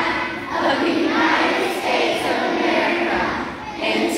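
A group of children singing together in unison.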